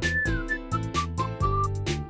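Background music: an upbeat track with a drum beat about twice a second, a bass line, and a whistled-sounding lead melody.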